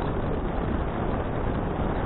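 Steady rushing wind noise on an action camera's microphone while riding a bicycle, heaviest in the low rumble, with no distinct events.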